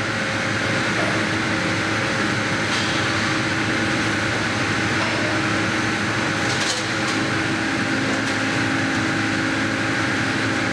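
Factory machinery running with a steady hum and hiss, with a few faint clicks about three and seven seconds in.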